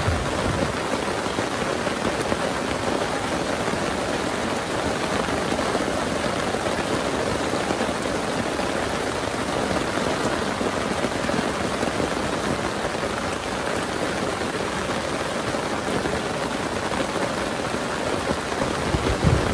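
Heavy rain falling steadily, an even hiss of drops. A short low rumble comes near the end.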